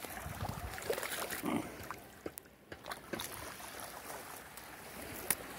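Small waves lapping and washing up on a sandy shore, with a few short clicks.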